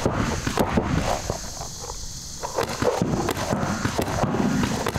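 Paintball markers firing rapid, irregular strings of shots, a quick series of sharp pops.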